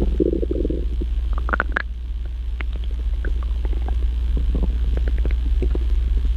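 Stomach growling: a low gurgle in the first second, then scattered small gurgles and pops over a steady low rumble.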